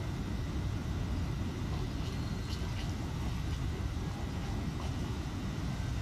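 Steady low rumble of outdoor background noise, with a few faint high ticks about two to three seconds in.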